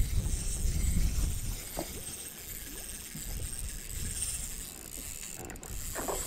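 Spinning reel being cranked, its gears whirring and ratcheting as line is wound in with a trout on, on ultralight trout tackle. A low rumble sits under the first second and a half, and there is a sharp click near the end.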